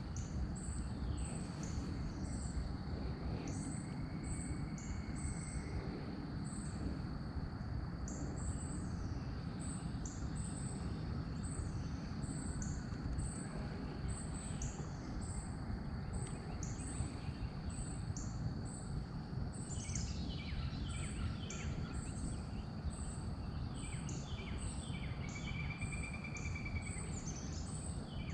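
Outdoor ambience of insects and birds: a steady high insect drone and a short high chirp repeating about every two-thirds of a second, with songbirds singing from about two-thirds of the way through, over a steady low rumble of background noise.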